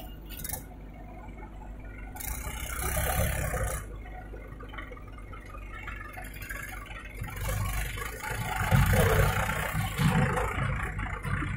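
Mahindra 475 DI tractor's diesel engine running as it pulls a trolley loaded with earth past close by. It gets louder in two surges, about two seconds in and again from about seven seconds.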